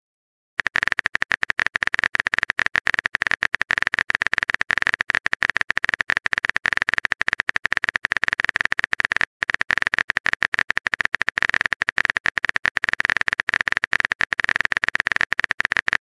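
Phone-keyboard typing sound effect: a rapid, steady patter of short key clicks as a long text message is typed out, with a brief pause about nine seconds in.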